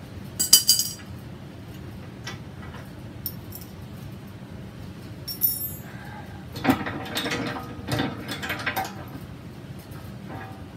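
Metal-on-metal clinks and rattles of an adjustable wrench and steel bolts as a plow-mount bracket is unbolted and a bolt is worked out by hand. A sharp clatter about half a second in, a single ringing clink midway, then a run of rattling clicks.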